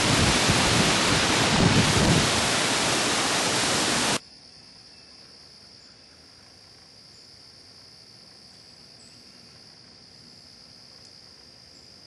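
Strong gusty wind from Hurricane Ike's windstorm buffeting the microphone, cutting off abruptly about four seconds in. After it comes a much quieter woodland with a steady, high-pitched insect drone.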